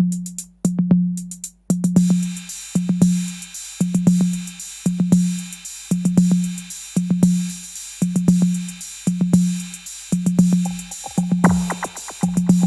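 Behringer RD-8 analog drum machine, an 808 clone, playing a steady electro beat: a boomy 808-style bass drum about twice a second with hi-hat ticks between. About two seconds in a hissing high wash joins, and near the end falling pitched sweeps come in over the beat.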